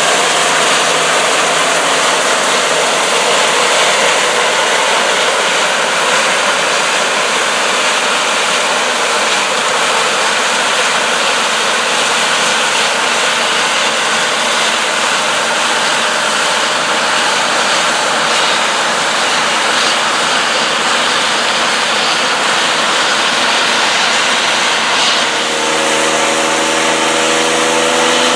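John Deere combine harvesters running at work in soybeans: a steady, loud rushing of engine, fans and threshing machinery. Near the end it cuts to a different engine note with several steady humming tones.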